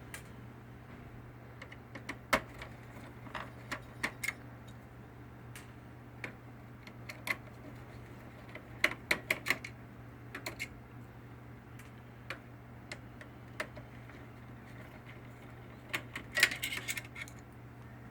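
Scattered small metal clicks and taps of a screwdriver working the screws out of a laser printer's motherboard and the screws being handled, with a few quick runs of clicks, over a low steady hum.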